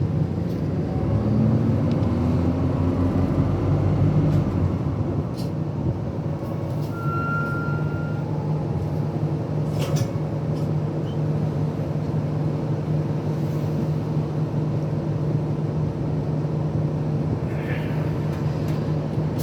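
Inside a bus: the engine hums, its note rising over the first few seconds and then holding steady, with a short high beep about seven seconds in.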